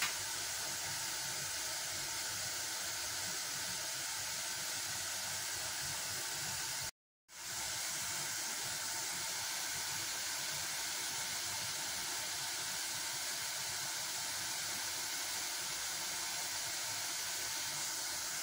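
A steady, even hiss, strongest in the high range, cut off by a brief dropout about seven seconds in and then resuming at the same level.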